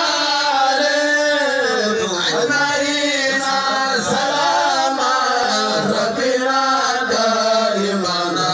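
A man chanting a religious song in long, wavering held notes, amplified through a microphone, as at a Senegalese gamou (Mawlid) celebration.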